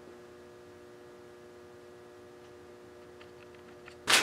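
A faint, steady hum of room tone, then a sudden loud burst of noise right at the end.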